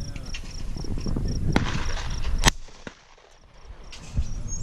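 A single shotgun shot about two and a half seconds in, with a lighter sharp crack about a second before it.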